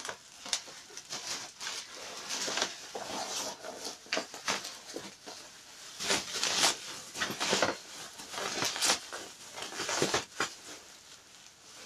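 Bubble wrap and plastic packing being pulled and handled, crinkling and rustling in irregular bursts.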